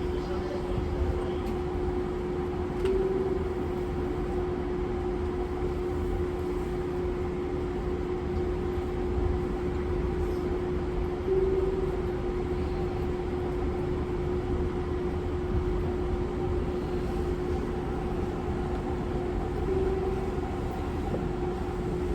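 Interior sound of a Tobu 50090-series electric train car: a steady hum holding one constant tone over low rumble, the tone swelling briefly about every eight seconds.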